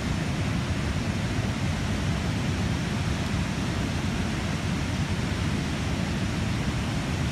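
Steady rushing noise of churning whitewater and wind, heaviest in the low end and unbroken.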